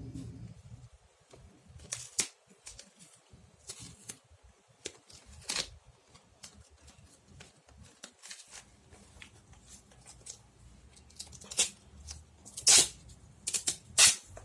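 Sticky tape being pulled, pressed and wrapped around a sponge by hand: scattered crackles and ticks, with a few louder sharp ones near the end.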